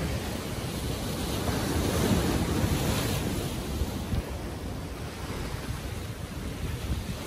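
Ocean surf washing over jetty rocks, with wind rumbling on the microphone. The surf swells louder about two seconds in, then eases.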